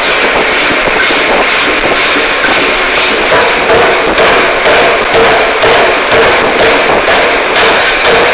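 Air forging hammer striking a red-hot billet in rapid, even blows, about two a second, over a constant loud din.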